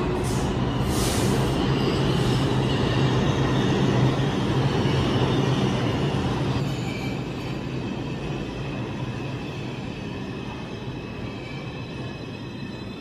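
New York City subway train of R142 cars pulling into the station: the rumble of steel wheels on rail swells to its loudest about four seconds in, with high wheel squeal near the start, then dies down as the train slows.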